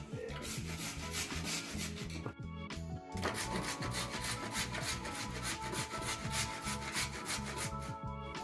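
A carrot grated by hand on a stainless-steel box grater, with rapid, even rasping strokes and a short pause about two and a half seconds in.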